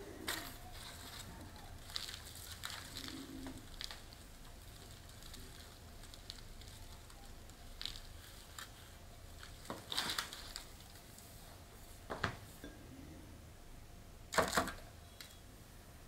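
Close hand-handling sounds of a fern being repotted: rustling leaves, crumbling potting soil and crinkling packing paper. Scattered short crackles and knocks run through it, the sharpest about ten, twelve and fourteen and a half seconds in.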